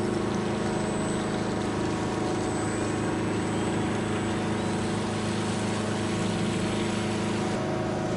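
Radio-controlled model boat's motor running with a steady hum.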